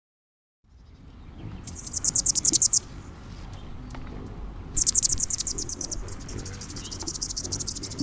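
A high, rapidly pulsed animal trill sounds twice, the second bout longer and fading away, over a low rumbling outdoor background.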